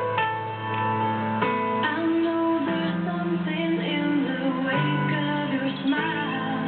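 Background music: a track of sustained chords, changing about every second.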